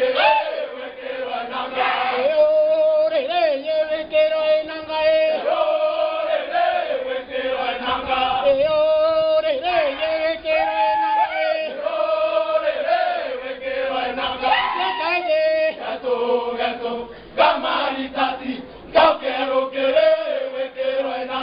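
A dance troupe chanting a traditional Kimeru song in unison, a repetitive melody held close to one note in short phrases, with a few sharp, loud accents.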